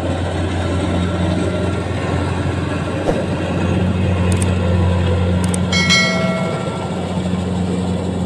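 Rice combine harvester's engine running at a steady drone with a strong low hum, and a brief high-pitched tone about six seconds in.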